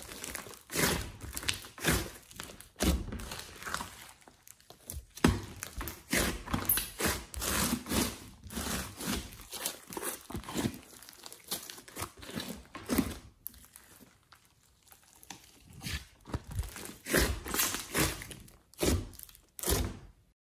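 Hands squishing and kneading a large mass of slime mixed with clay and glitter: a run of irregular wet squelches and crackles as it is squeezed, folded and poked, stopping just before the end.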